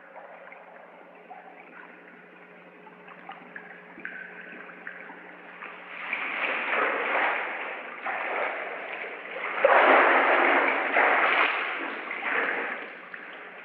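Water splashing and sloshing as a swimmer climbs out of an indoor pool by its ladder, building up from about six seconds in and loudest around ten seconds, over a steady low hum.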